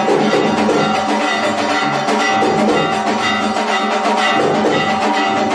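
Temple aarti music: bells and metal percussion ringing and clanging continuously, with drums beating a steady rhythm.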